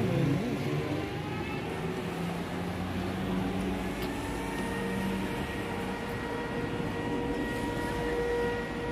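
Steady outdoor rumble of motor traffic, joined about halfway through by a steady high whine.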